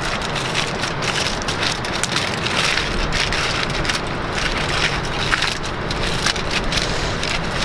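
Aluminium foil being crinkled and folded by hand into a cover, a dense, steady crinkling.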